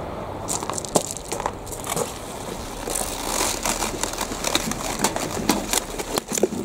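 Large cauliflower leaves being handled and bent back by gloved hands: irregular crackling and rustling with sharp little snaps.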